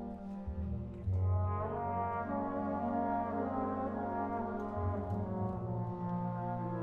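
Solo trombone playing a sustained melodic line over low held notes from a wind band. The music swells about a second in.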